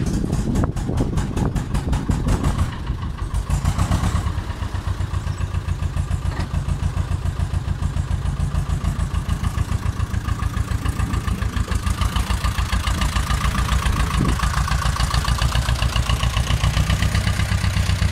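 Ursus C-330 tractor's two-cylinder diesel engine running with a steady, even beat as the tractor pulls away, the beat less even in the first few seconds.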